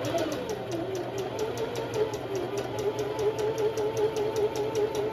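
Electric sewing machine running steadily, zigzag-stitching coiled cotton rope: a quick, even rattle of needle strokes, about seven a second, over the motor's hum, which speeds up as the machine starts.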